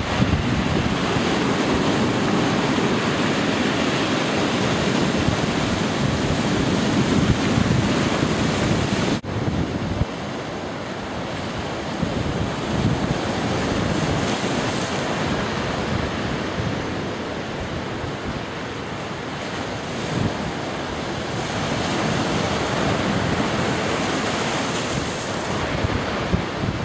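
Heavy storm surf breaking and churning on the shore, with gusts of wind buffeting the microphone. There is an abrupt cut a little over nine seconds in, after which the surf is a little quieter.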